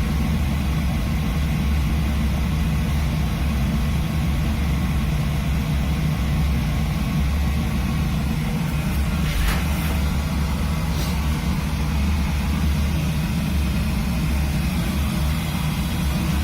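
Oil burner on a boiler running steadily with a low, even roar, freshly restarted and not yet tuned after a clogged oil filter starved it.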